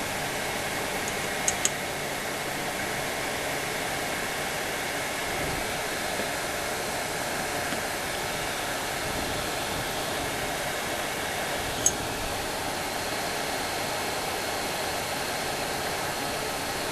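Steady blowing fan noise, like a small fan or hot-air blower running. Small sharp clicks come twice in quick succession about a second and a half in, and once more about halfway through.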